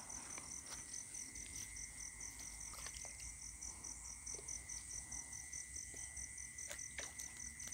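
Night insect chorus: crickets trilling steadily, one high song pulsing in a fast even rhythm over a continuous higher and a lower drone. A few faint clicks and knocks, the loudest near the end.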